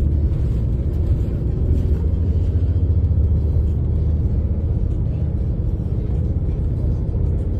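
Shuttle bus driving through city streets, heard from inside the passenger cabin: a steady low rumble of engine and road noise.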